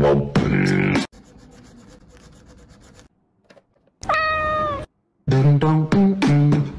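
A cat meows once about four seconds in: one drawn-out call that drops in pitch at its start and then holds. Short pitched, voice-like sounds come before and after it.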